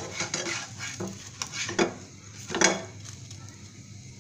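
White plastic spatula scraping and tapping against a non-stick frying pan as a folded egg paratha is pushed and turned, several strokes, the loudest about two and a half seconds in, over the steady sizzle of the paratha frying in oil.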